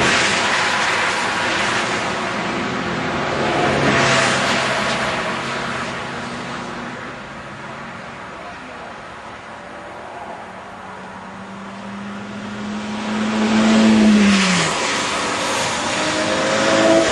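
Cars passing one after another at speed on a race track, each engine getting louder as it approaches and fading as it goes. One passes at the start, one about four seconds in, and after a quieter lull one with a steady engine note that drops in pitch as it goes by about fourteen seconds in, with another arriving near the end.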